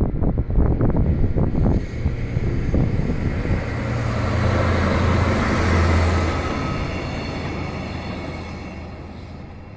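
JR DE10 diesel-hydraulic locomotive passing: its V12 diesel engine's low drone builds to a peak about six seconds in and then fades as the two flatcars follow on the rails. Gusty rumbling on the microphone comes in the first couple of seconds.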